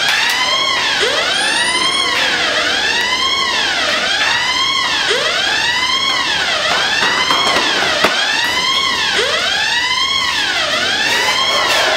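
Electronic fire alarm sounders wailing, the pitch sweeping up and down about once a second with several sweeps overlapping: the building's fire alarm going off for a fire drill.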